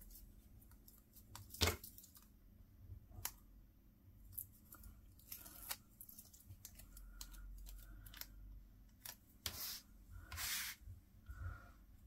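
Faint, scattered paper-handling sounds as a piece of paper is trimmed down by hand: a few short cutting or tearing strokes with small clicks and rustles in between, the longest two near the end.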